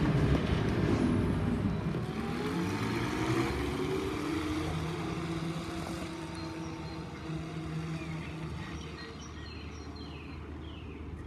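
Škoda 14Tr trolleybus moving off, the whine of its electric traction drive gliding up in pitch, then fading as the trolleybus draws away.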